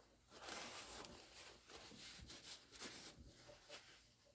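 Near silence with faint scraping and a few small clicks, typical of hands handling and rubbing the parts of an air-over-hydraulic treadle pump.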